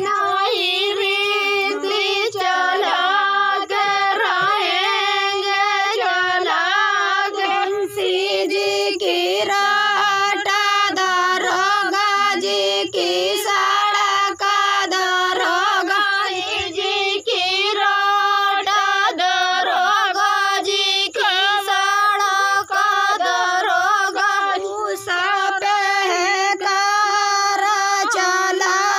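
High female voice singing a chohkra, a women's wedding folk song, in a steady, unbroken melody.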